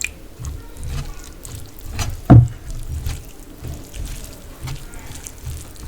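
Close-up chewing and wet mouth sounds of someone eating fish curry with rice: low chewing thuds roughly every half second, with moist lip smacks and clicks. There is one loud thump about two seconds in.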